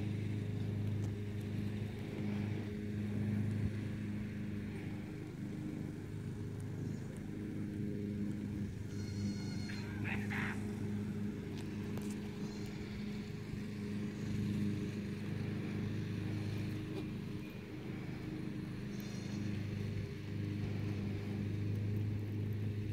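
Steady low mechanical drone, like a motor or engine running, throughout. A brief higher-pitched animal call stands out about ten seconds in.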